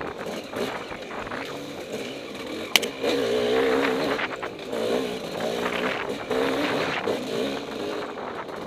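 Dirt bike engine heard up close from on board, revving up and down with the throttle as it is ridden over rough trail, with a sharp knock a little under three seconds in.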